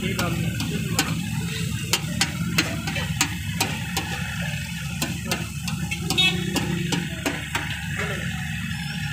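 Chicken pieces frying in masala on a large flat iron tawa, with a metal spatula working the griddle: sharp, irregular clicks and ticks about once or twice a second over a steady low hum.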